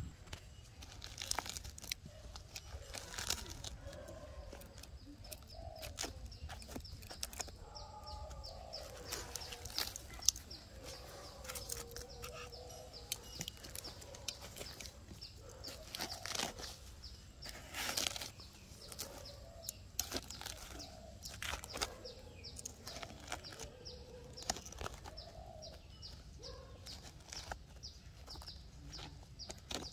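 A knife blade prying and scraping into a rotting palm trunk, its dry fibres crackling and snapping in sharp, irregular clicks throughout. Chickens cluck faintly underneath.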